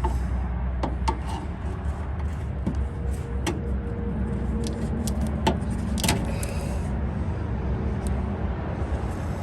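Plastic wiring-harness retaining clips being pried and popped off a pickup truck's underbody, several sharp clicks and handling sounds over a steady low rumble.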